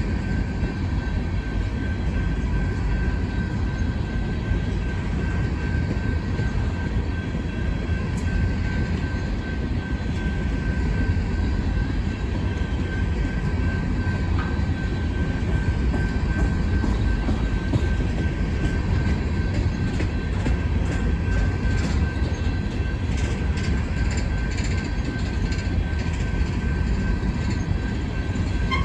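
Coal hopper cars of a freight train rolling past: a steady low rumble with wheels clacking over rail joints, the clatter getting busier in the second half, and a faint steady high tone throughout.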